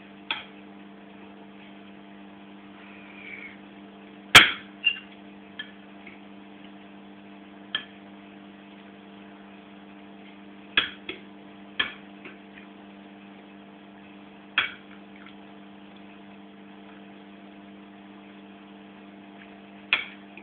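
Cutlery clinking and scraping against a plate during a meal: irregular sharp clinks every few seconds, the loudest about four seconds in. A steady electrical hum runs underneath.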